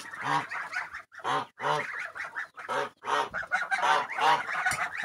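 Flock of white domestic geese honking, a rapid run of loud, overlapping calls several times a second.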